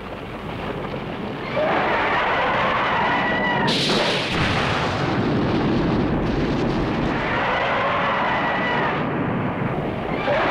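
Explosions from tank shells bursting on a hillside, rumbling on with a sharp blast about four seconds in. Over them, the monster Zambolar gives a long cry twice, rising and then falling in pitch.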